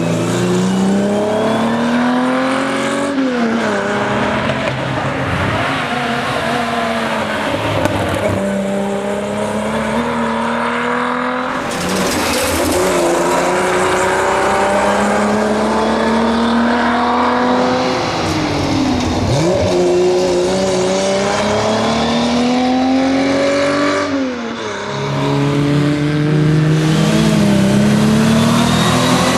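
1961 Ford Zephyr rally car's straight-six engine under hard acceleration. Its pitch climbs steadily, then drops sharply at each gear change before climbing again, several times over. Near the middle it falls away and picks up again, as when braking for a corner.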